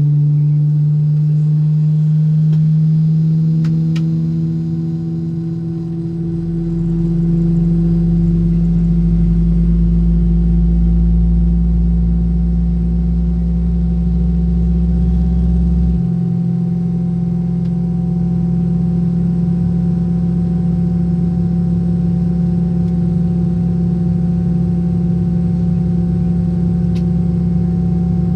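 Airliner engines heard from inside the cabin as the plane begins to taxi: a steady drone with several held tones. A deeper rumble swells about six seconds in and steps down at about sixteen seconds.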